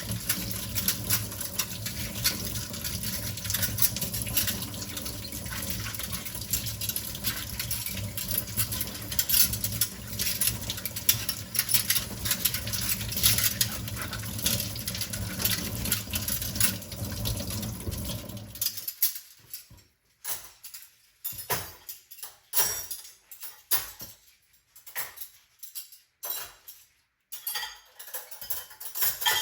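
Kitchen tap running into a sink while dishes are washed, with water splashing and dishes clinking. The running water stops suddenly about two-thirds of the way through, leaving scattered clinks and knocks of dishes being handled.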